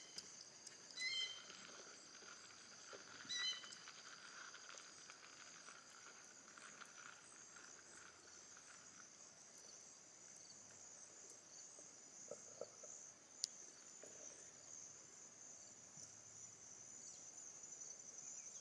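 Faint, steady high-pitched chirring of crickets in a grassy field, with three short chirps in the first few seconds and a single click past the middle.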